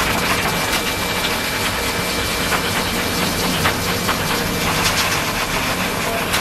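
Hose-type pet blower dryer running steadily, a rush of air with a faint steady high tone, blowing on a wet kitten's fur to dry it after its bath.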